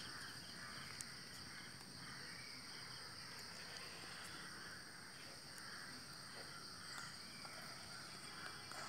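Faint, steady high-pitched chirring of insects, with a faint click about a second in.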